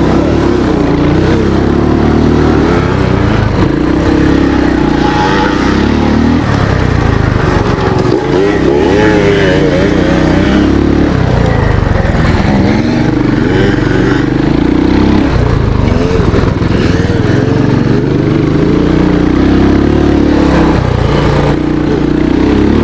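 Royal Enfield motorcycle engine under hard acceleration on a dirt track, the revs climbing and falling back at each gear change, several times over.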